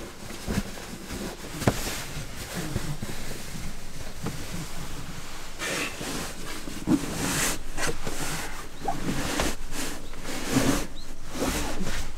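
A sleeping bag being pulled out of its nylon stuff sack and shaken out: uneven bursts of fabric rustling and swishing, with a few soft knocks of handling.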